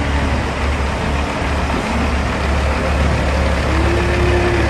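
Semi truck running: steady diesel engine and road noise, with a faint engine tone drifting slightly upward near the end.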